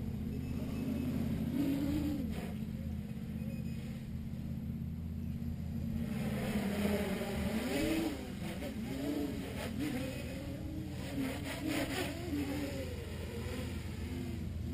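Armattan 355 tricopter's electric motors and propellers whining in flight, pitch rising and falling over and over as the throttle changes through its flips and passes. The sound grows louder and brighter about halfway through as it comes close overhead, over a steady low hum.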